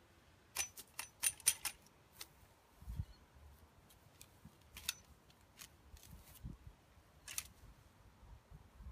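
Long-handled Weedho weed extractor worked into lawn soil: scattered sharp clicks and crisp snaps, a quick run of them about a second in and single ones after, with a couple of dull thumps.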